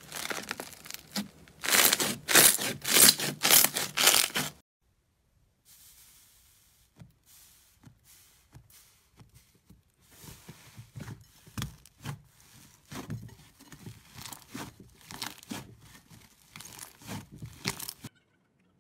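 Textured blue slime squeezed by hand, crackling and crunching loudly for about four seconds. After a brief silence, softer sticky squishes and pops follow as smooth slime is pressed flat and kneaded. These grow louder in the second half and stop just before the end.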